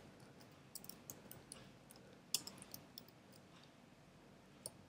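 Faint computer keyboard keystrokes: about ten irregular taps, the loudest a little over two seconds in, as a search term is typed.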